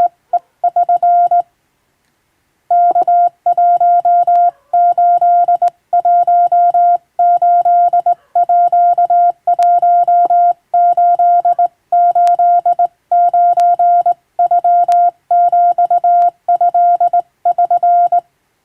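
Hand-keyed Morse code: a steady beep switched on and off in quick runs of dots and dashes, sending Japanese wabun code. It pauses briefly about two seconds in and stops just before the end.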